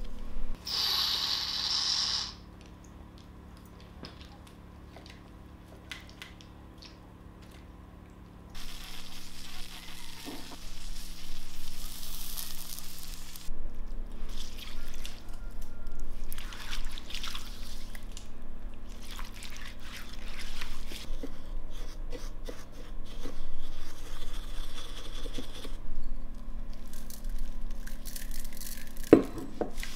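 Liquid poured from a glass over a whole roasted leg, splashing and dripping onto the meat and into the metal tray beneath, after a short hiss at the start and a quiet spell. A sharp knock near the end.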